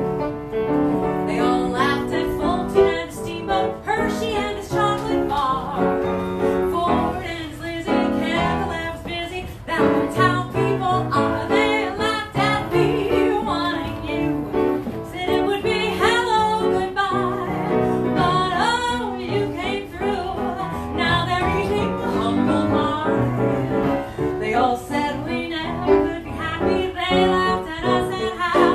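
A woman singing a show tune into a microphone, accompanied by a grand piano.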